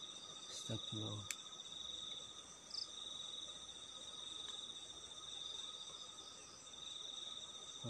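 Night insect chorus: a steady, high-pitched trill that carries on throughout, with a couple of brief low sounds and a sharp click about a second in.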